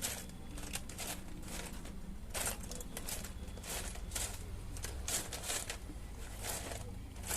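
Irregular light clicks and rustling: hands handling small tools and electronic parts on a workbench.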